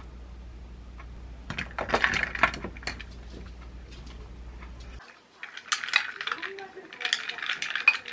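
Ice cubes clinking and rattling against a tall glass as a straw stirs an iced latte, in two spells of quick clinks with a short pause between them. A steady low hum sits under the first spell and stops about five seconds in.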